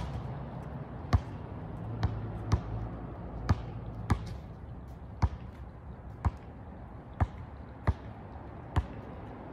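A basketball being dribbled on an asphalt court: about a dozen sharp single bounces, roughly one a second and unevenly spaced.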